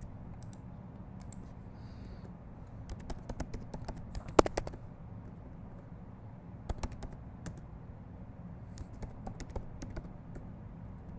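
Computer keyboard being typed on in short bursts of key clicks, with pauses between them, over a low steady hum.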